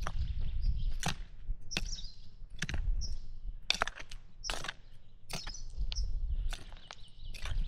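Hand tool scraping and chopping into garden soil in a steady rhythm, about one stroke a second, while hilling potatoes. Small birds chirp between the strokes.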